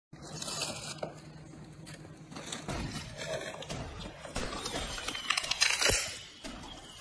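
Paper crinkling and rustling as a box of party crackers is opened and the crackers are handled, with scattered clicks and knocks, busiest a little over five seconds in.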